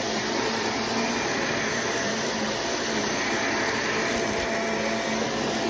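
Shark upright vacuum cleaner running steadily while it is pushed over carpet.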